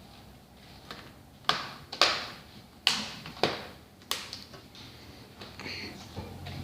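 Plastic DVD keep case being handled: a series of sharp clicks and taps, about six over three seconds, then quieter handling noise.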